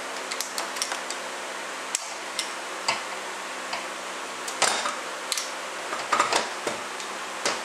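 Irregular sharp metal clicks and ticks of a small hand tool tapping and prying behind a tapered snap ring that sits tight in the groove of a 42LE transmission's steel clutch drum.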